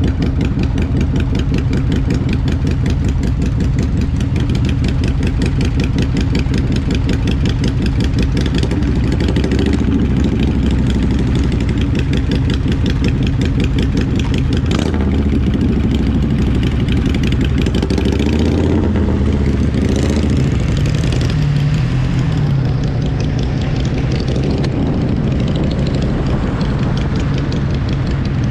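Motorcycle engine running steadily under way, its pitch rising and falling a little past the middle.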